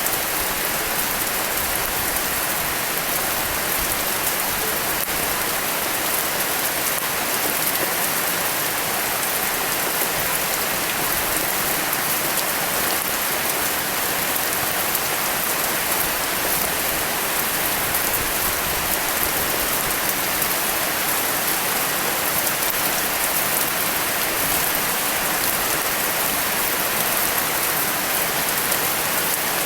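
Steady rain falling: a dense, even hiss of drops that holds constant throughout.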